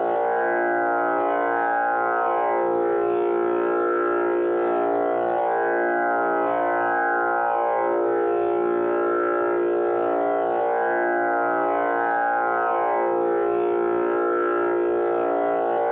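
Tanpura drone tuned to A#, sounding steadily without a break. Its buzzing overtones swell and fade in cycles of a few seconds as the strings are plucked in turn.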